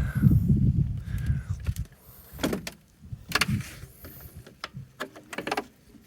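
Low rumbling handling noise, then a newly fitted door latch and the door rattling, with a few sharp clicks and knocks spread over several seconds.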